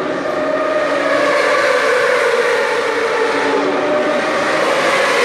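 Race motorcycle engines running at high revs on the circuit: a loud, steady engine tone that climbs a little in pitch over the first couple of seconds and then holds.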